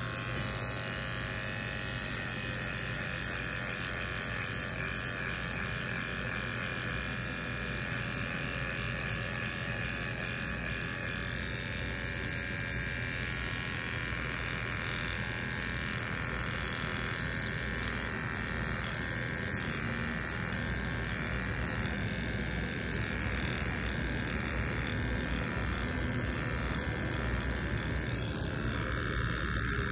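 Electric hair trimmer running with a steady buzz as it is drawn through the hair at the side of the head, its tone wavering slightly and regularly from about twelve seconds in.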